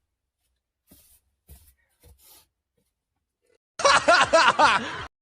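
A few faint short sounds, then laughter for just over a second near the end that cuts off abruptly.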